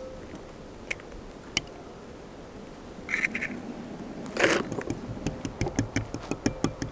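Fork beating raw eggs in a glass bowl: quick, even clinks of the fork against the glass, about six a second, starting about five seconds in. Before that, a few scattered light clicks and two brief rustling sounds.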